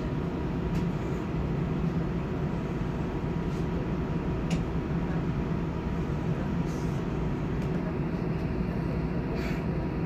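Steady low mechanical hum heard from inside a trolleybus cabin, with a thin steady high tone and a few faint clicks.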